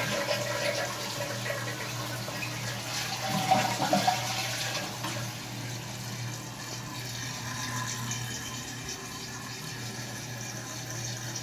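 Water running steadily in a 2004 Crane Galaxy toilet just after a flush, the tank refilling through its fill valve. It swells briefly about three and a half seconds in, then eases slowly.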